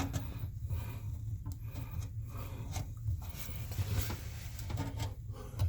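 Rubbing and small knocks of hands working a rubber overflow gasket into a tight bathtub overflow pipe, over a low steady hum.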